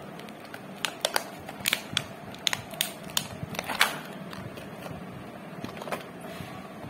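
Cardboard chip box and its packaging being handled and opened by hand, giving irregular crackles and clicks, most of them in the first four seconds, then quieter.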